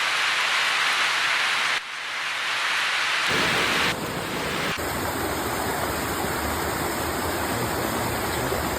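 Heavy rain pouring in a steady hiss. It changes abruptly twice, about two and three seconds in, and after the second change a deeper rushing noise joins it.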